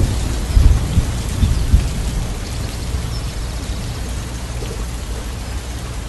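Steady rain hissing, with low thunder rumbling loudest in the first two seconds and then fading into a softer background rumble.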